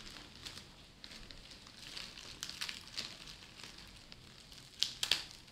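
Clear plastic wrap crinkling and crackling as it is slit with a small knife and pulled open by hand, with a few sharper crackles near the end.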